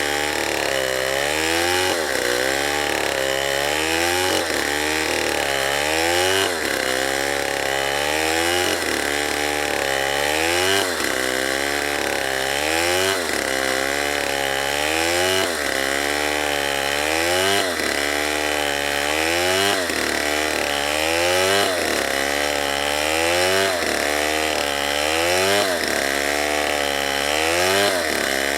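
Two-stroke chainsaw cutting into wood, the engine running hard, its pitch dipping under load and recovering in a regular cycle about every two seconds.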